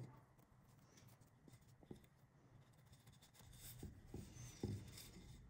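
Near silence with faint rustles and a few light taps, mostly in the second half, as paper yarn is laid over a cardboard tube.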